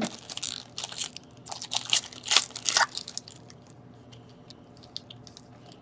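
The wrapper of a 2016/17 SPx hockey card pack crinkling and crackling in the hands as it is torn open, for about three seconds. After that, only a few faint ticks of the card being handled.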